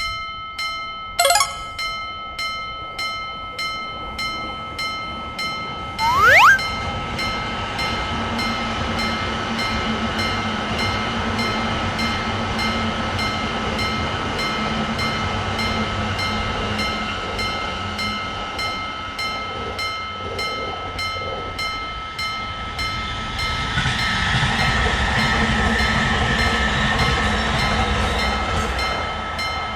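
Japanese railroad crossing bell ringing steadily at about three strikes every two seconds. About six seconds in a brief loud rising tone sounds, and then a train runs past with a rumble that grows louder near the end, the bell ringing on over it.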